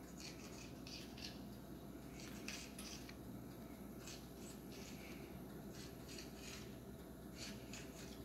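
Knife cutting through rolled biscuit dough and scraping on a granite countertop: a series of short, faint scrapes in small clusters.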